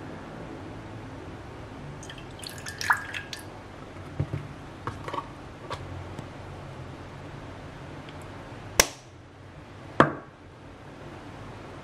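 Kitchen handling sounds as milk and ground cinnamon go into a ceramic bowl of eggs: a cluster of light clicks and clinks, a few small ticks, then two sharp taps about a second apart near the end, over a low steady hum.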